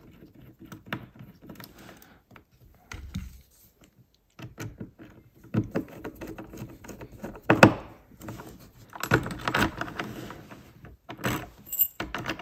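Small metal clicks, scrapes and rattles of a cam lock being fitted through a wooden drawer front: its nut and washer clinking as they are threaded and tightened with a nut driver. The rattling grows louder in the second half, with one sharp knock.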